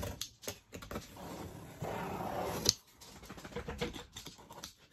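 Box cutter slitting the packing tape along the seam of a cardboard box, in three scraping strokes, the last ending sharply just before the three-second mark. Light ticks and taps on the cardboard follow.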